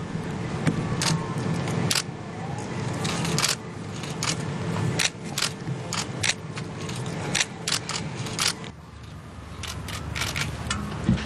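Camera shutters clicking in quick, irregular succession, several a second from more than one camera, over a low background murmur.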